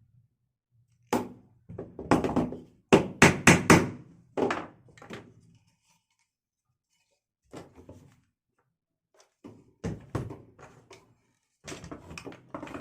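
Wooden bird-cage parts being knocked and tapped together by hand: a string of separate hard knocks, with a quick run of four about three seconds in and scattered lighter taps later.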